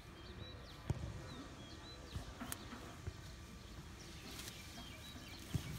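Faint rustling of leafy weeds as a large long-haired dog pushes through them, with a few soft knocks, the clearest about a second in and near the end. Small birds chirp faintly in the background.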